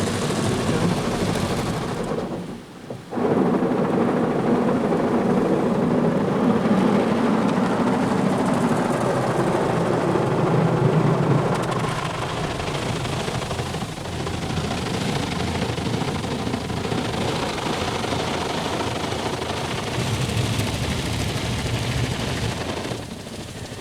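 Rotating car-wash brushes of a WashTec SoftCare2 Pro rollover wash scrubbing and slapping over the car's body, heard from inside the cabin, with water spraying. The noise dips briefly about two to three seconds in.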